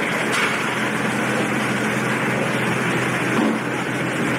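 Steady low engine drone and rushing noise of a car ferry under way, heard on its open deck, with a brief click about half a second in.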